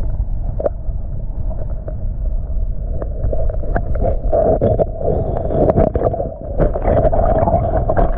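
Creek current heard through a submerged camera: a steady, muffled low rumble of flowing water with scattered clicks and ticks of pebbles and bubbles. It grows louder and busier near the end as a gloved hand digs among the stones.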